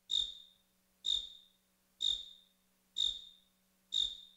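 Cartoon cricket chirping: single short chirps about once a second, five in all, over a faint steady low hum.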